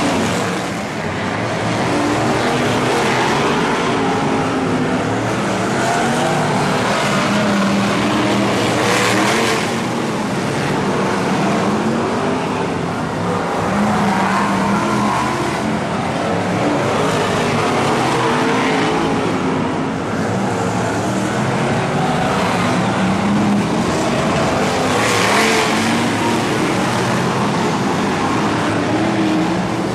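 A pack of BRISCA F1 stock cars' V8 engines racing flat out round an oval, the engine note rising and falling as the cars lap through the turns. Two louder, harsher surges, about nine seconds in and again later on, as cars pass close.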